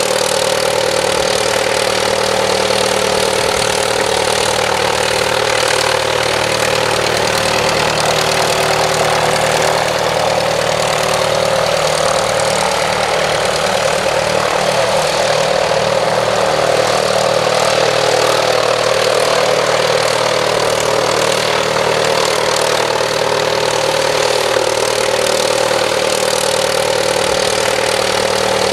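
Halberstadt D.IV replica biplane's piston aero engine idling steadily on the ground, its propeller turning. The pitch wavers slightly about halfway through.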